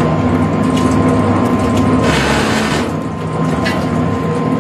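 Industrial twin-shaft shredder running, a steady motor hum under its turning steel cutters, with scattered clicks and a short burst of scraping about two seconds in.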